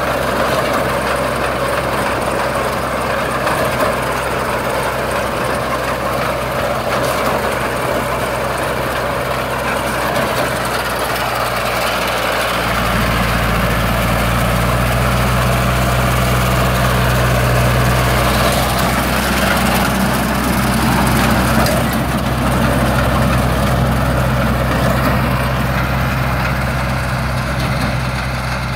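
Farm tractor engine running steadily while driving a PTO-powered, tractor-mounted sesame reaper-binder through the crop, the engine hum and the machine's running mechanism heard together. About halfway through, the low engine hum becomes noticeably louder.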